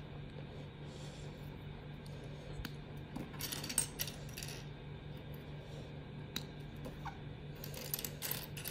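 Small plastic Lego pieces clicking and clattering now and then as they are handled, with a few clusters of light clicks around the middle and near the end. A faint steady low hum lies underneath.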